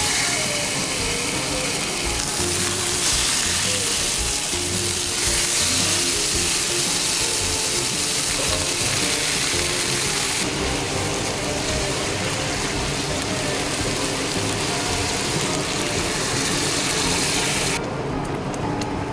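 Thick pork neck steaks sizzling as they sear in a stainless steel frying pan. The sizzle shifts in strength every few seconds and falls away near the end.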